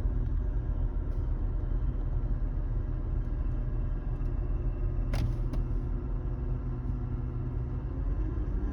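2008 Volvo V70 running with a steady low rumble and faint steady tones above it: the metallic grinding noise the owner is trying to trace. One sharp click comes about five seconds in.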